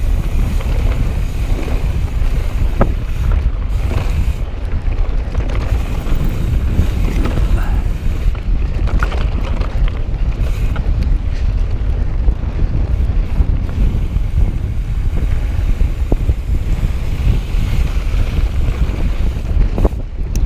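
Wind buffeting the camera's microphone: a loud, steady low rumble that goes on without a break, with a few faint clicks over it.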